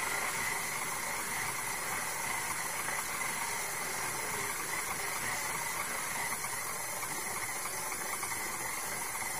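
KitchenAid Classic tilt-head stand mixer motor running steadily, turning its dough hook through pizza dough: an even whir with a faint steady high whine.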